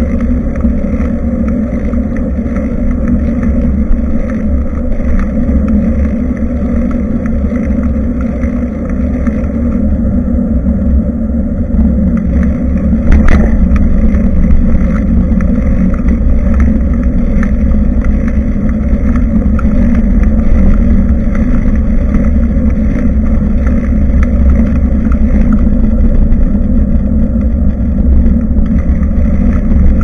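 Steady low rumble of riding noise on a bicycle-mounted camera's microphone: wind and road noise while cycling, with a single sharp knock about 13 seconds in.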